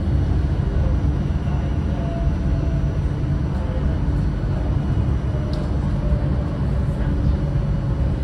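Steady low rumble of an Alicante Tram in motion, heard from on board.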